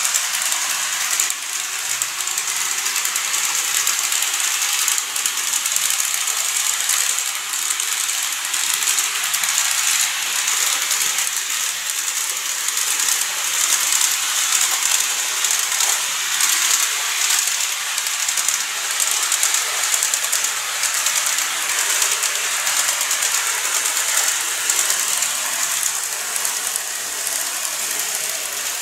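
N-gauge model train running on plastic track: a steady, high-pitched whirring rattle from its motor and wheels on the rails.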